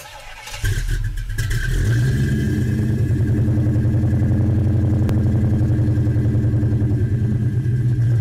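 A car engine comes in loud about half a second in and then runs at a steady idle with an even, pulsing rumble.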